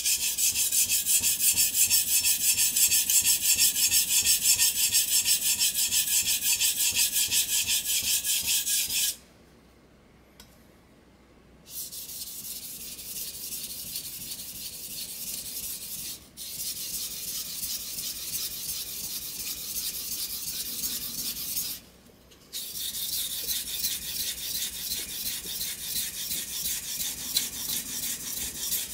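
A steel kitchen knife blade stroked back and forth on a wet whetstone, a quick, rhythmic, rasping scrape. The first run of strokes is the loudest. It stops about nine seconds in, resumes more quietly, and has another brief pause a little past twenty seconds.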